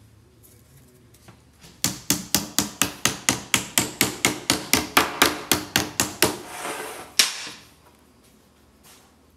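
Rhythmic knocking on a metal gallon can of body filler, about five sharp knocks a second for some four seconds. A short scraping rattle follows, then one last loud knock.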